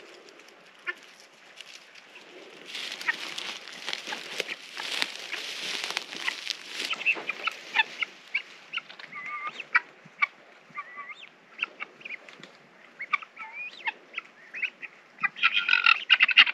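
Helmeted guinea fowl calling: short, harsh cries, scattered at first, then a loud, dense chorus near the end. A few seconds of rustling hiss come before the calls.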